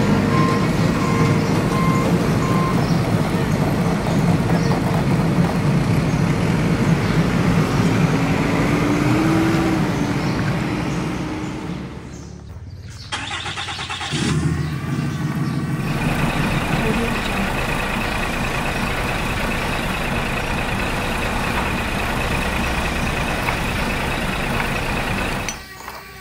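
Heavy-truck engine sound running, with reversing beeps that stop about three seconds in. The sound drops away briefly in the middle, then carries on steadily with a high whine over it.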